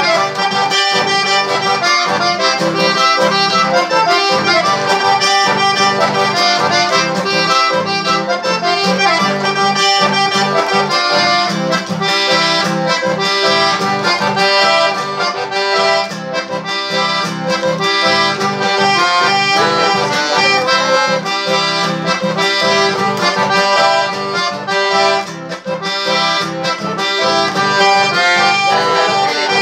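Button accordion playing a melody over a strummed acoustic guitar, in a steady rhythm with no singing.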